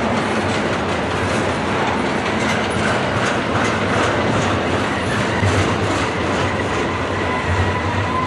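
Loaded double-stack intermodal well cars rolling past close by: the steady noise of steel wheels on rail, with repeated clicks from the wheels. A faint steady high tone joins in during the second half.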